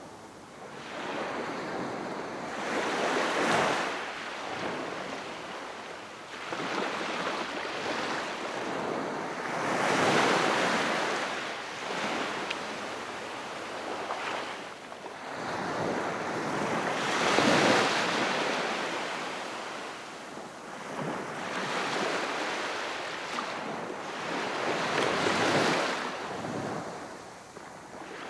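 Very calm sea waves washing onto the shore, the surf swelling and ebbing in gentle surges about every seven seconds, four times.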